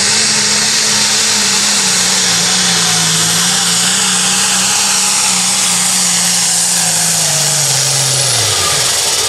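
International pro stock pulling tractor's turbocharged diesel engine running flat out under the load of the sled, with a loud hiss over it. Its note sinks slowly through the pull, then falls away sharply near the end as the run finishes.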